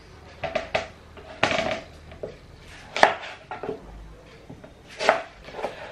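Kitchen knife slicing through an onion and knocking on a cutting board, a few separate cuts at uneven intervals.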